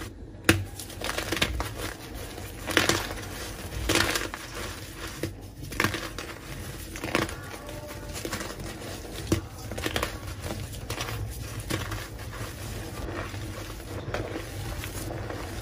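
Blocks of reformed gym chalk crunching and crumbling as hands squeeze and break them, the pieces falling into loose chalk powder. Irregular crunches, several sharper ones a second or two apart, the loudest about half a second in.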